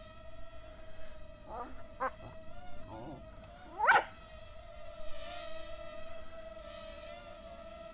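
Parrot Mambo mini-drone's small electric propeller motors whining steadily in a hover, the pitch wavering slightly. A few short dog yelps cut in around a couple of seconds in, the loudest one rising sharply about four seconds in.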